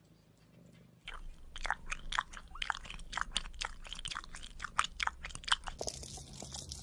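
Newborn kitten suckling milk from a nipple-tipped feeding syringe: a quick run of short smacking clicks, several a second. They start about a second in and stop about a second before the end.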